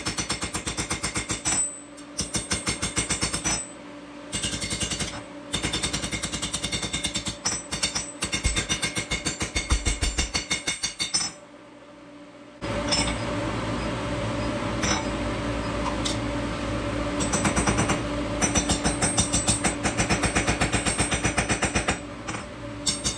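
Forging strikes on hot O1 tool steel: rapid, evenly spaced blows in runs separated by short pauses, over a steady hum.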